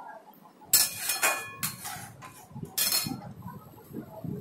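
Metal slotted spatula scraping and clinking against a metal kadhai a few times while stirring a thin gravy.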